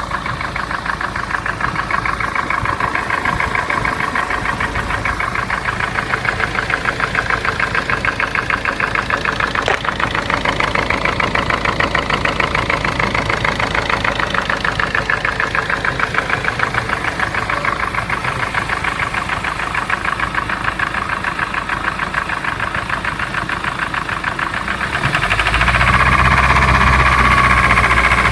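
Ford Transit 2.4 TDCi four-cylinder diesel engine running with a steady rhythmic knock from the piston pin on the first cylinder, the sign of a small-end bushing worn out by oil starvation. The engine gets louder about 25 seconds in and stays so.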